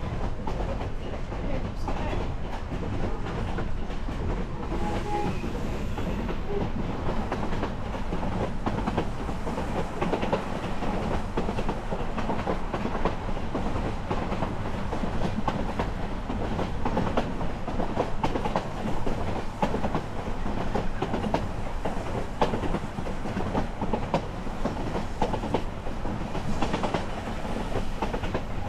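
Narrow-gauge passenger coach rolling along the track: steel wheels clicking and clattering over the rails under a steady rumble of the moving car.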